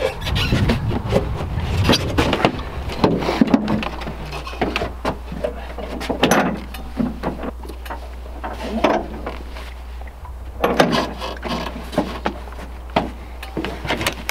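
A dirt bike being pushed up a metal loading ramp into a pickup bed and secured: irregular clanks, knocks and scrapes of the bike, ramp and truck bed, with the engine off.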